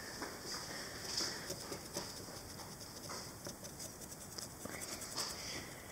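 Felt-tip Sharpie marker rubbing over a painted rock's rough surface as it colours in, in quiet repeated short strokes with small clicks.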